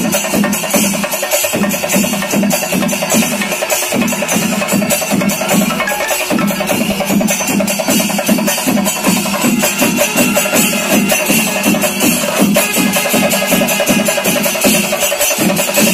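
Loud percussion music: drums struck in a fast, steady rhythm, many strokes a second, with bright metallic strikes over them.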